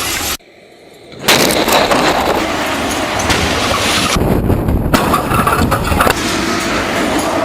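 A truck crash test: a sudden loud impact about a second in, then a long stretch of loud crashing noise full of crackles, with abrupt changes.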